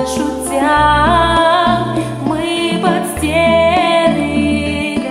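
Karaoke recording of a slow pop ballad: a backing track with a steady bass line under a melody of long, wavering held notes.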